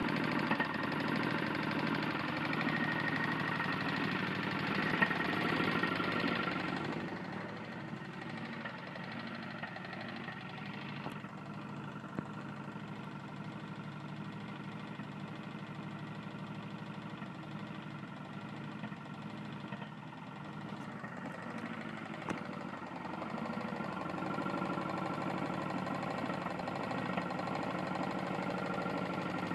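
Tecumseh lawn mower engine running with a knock from a failing connecting rod. It is louder at first, drops quieter after about seven seconds, and rises again about twenty-three seconds in.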